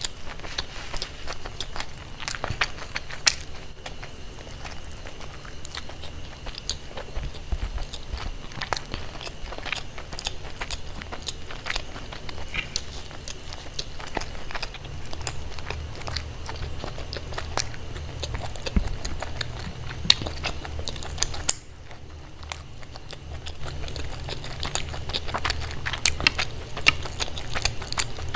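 Close-miked eating: biting and chewing with many sharp clicks and crackles, over a low steady hum.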